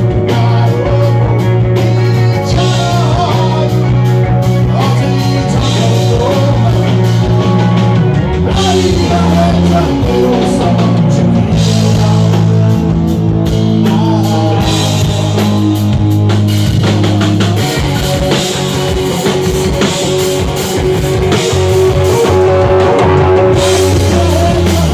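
Live rock band playing: a drum kit and guitars over held bass notes that change every few seconds.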